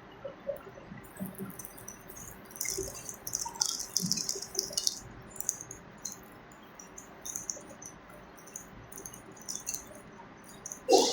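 Small clinks, taps and brief splashing of kitchen work, with a louder knock near the end.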